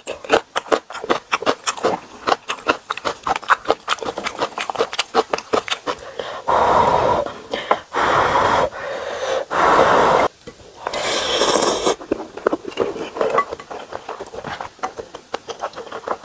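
A person eating instant ramen noodles: rapid wet chewing and lip-smacking clicks, then four long noodle slurps from about six seconds in, then more chewing.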